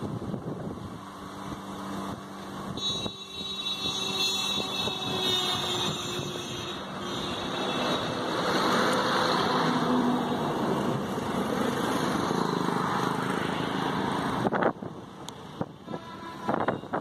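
A motor vehicle running, with a high-pitched tone from about three to six seconds in; near the end the sound drops away and a few clicks are heard.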